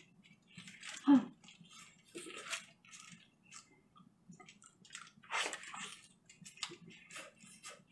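Someone eating braised pork ribs close to the microphone: wet chewing and smacking, with the meat being torn apart by hand. The sound is a run of irregular small smacks and clicks.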